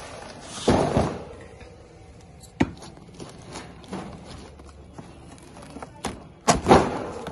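A cardboard box being handled and its taped seam cut open with scissors: scraping and rustling of cardboard, with a few sharp clicks and thuds. The loudest handling comes near the end.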